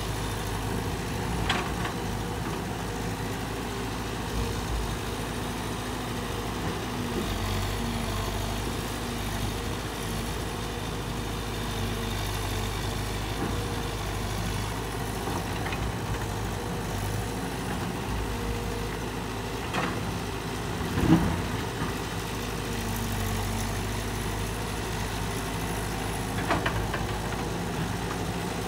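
Caterpillar 312 hydraulic excavator's diesel engine running steadily as it digs, its tone shifting slightly with the work. A few short knocks come through, the loudest about three-quarters of the way through.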